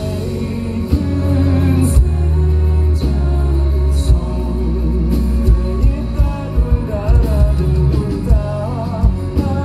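Live rock band heard through a concert PA: a male singer over electric guitar, heavy bass and drums, with drum hits landing about once a second.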